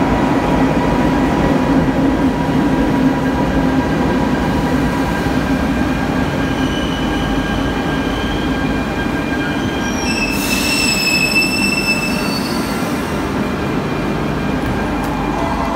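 Barcelona Metro Line 1 train pulling into the platform and braking to a stop, with steady running noise. A high-pitched squeal rises over it about ten seconds in and lasts a few seconds as the train comes to a halt.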